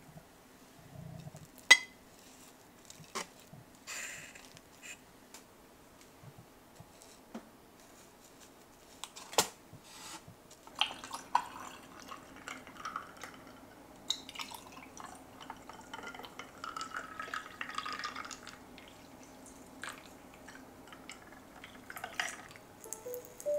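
Tableware handled on a table, with a sharp clink about two seconds in and a few more later. From about eleven seconds, milk pours from a carton into glass tumblers over ice, with small clinks. Near the end, tea pours from a glass teapot into the glasses.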